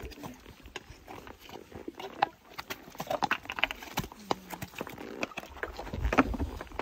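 Horses' hooves clopping and clattering irregularly on loose rocks as the ponies walk over a stony path, with a louder low rumble around six seconds in.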